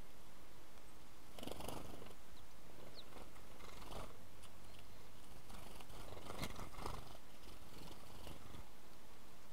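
House sparrows' wings whirring in short flutters as the birds fly in and land, about three times, over a steady background hiss.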